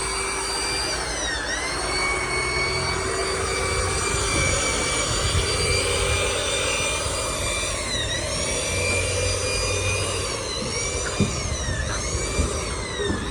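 Electric rotary polishing machine running on a bus's painted body panel with a high whine. The whine dips briefly in pitch and recovers about four times.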